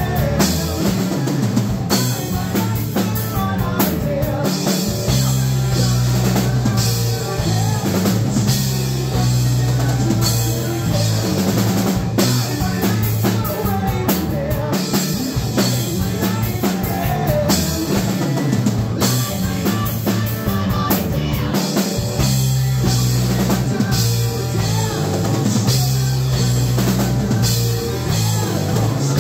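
Live rock band playing: drum kit, electric bass and electric guitar, with the bass notes and drums loudest.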